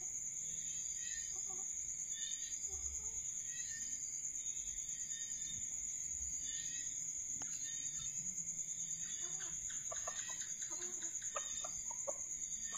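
Red junglefowl clucking in short calls, with a quick flurry of clucks near the end, over a steady high-pitched insect trill.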